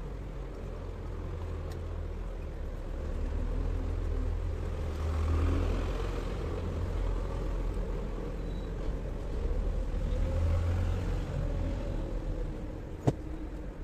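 A motor vehicle engine running steadily with a low rumble that swells twice, and one sharp click near the end.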